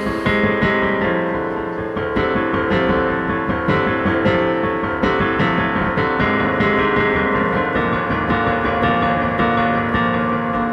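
Piano playing the song's instrumental break, loud chords struck over and over with no vocal.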